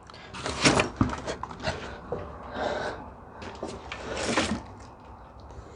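Scattered knocks, clunks and short scraping rushes of a person moving about on a wooden work table, busiest in the first second and again around four seconds in.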